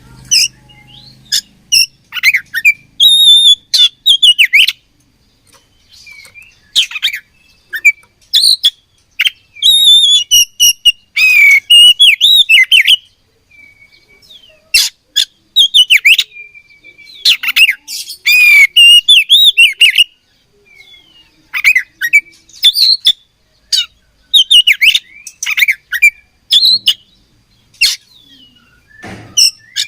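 Oriental magpie-robin (kacer) singing loudly in quick bursts of varied whistles and chattering notes, with short pauses between phrases.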